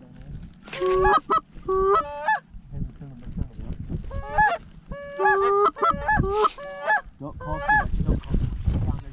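Canada goose honks and clucks in two quick runs, each note breaking from a low to a higher pitch, calling to geese flying high overhead.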